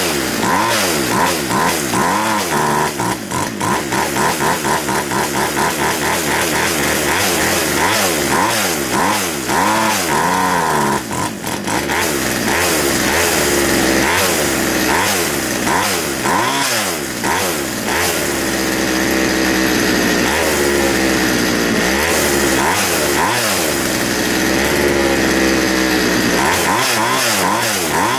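McCulloch Mac 441 chainsaw's two-stroke engine running and being revved up and down over and over, with a spell at a steadier, higher speed in the second half. It is reluctant to rev, which the owner suspects is a blocked exhaust.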